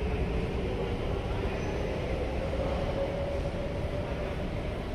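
MRT train running behind the platform screen doors: a steady low rumble with a hum that rises slightly in pitch and then holds, echoing in the underground station.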